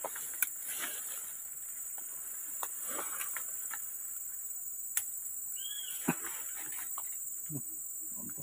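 Steady high-pitched chorus of insects, crickets or cicadas, droning without a break. Over it come a few sharp clicks and light rustles from fern stems and leaves being handled and picked, and one short high chirp about six seconds in.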